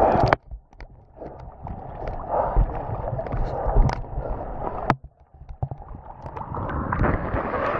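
Seawater sloshing and lapping around a camera in an underwater housing held at the surface, muffled and rumbling as small waves wash over it, with scattered knocks and a brief break about five seconds in.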